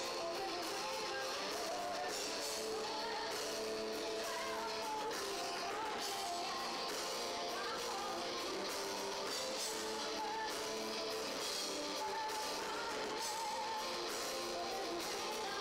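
Live rock band playing: distorted electric guitar, bass guitar and drum kit, with a woman singing. Heard from the audience, the sound is steady and thin, with little bass.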